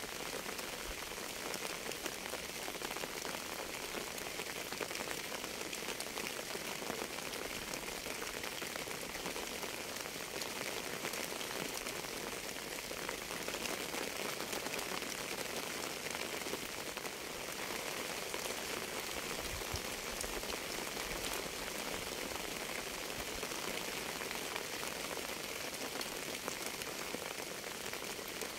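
Steady rain falling on a surface: an even hiss sprinkled with many small raindrop taps, unchanging throughout.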